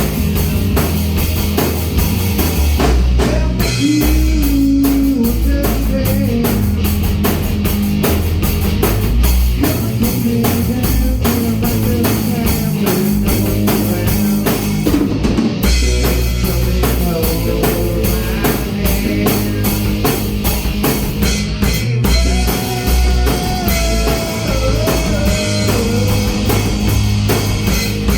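Rock music played on a full drum kit with electric guitar: a steady beat of drum hits under a wandering melodic line, with no break.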